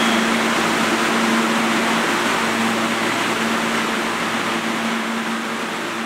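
New York City subway train pulling away down the tunnel, its running noise slowly fading as it recedes, over a steady hum.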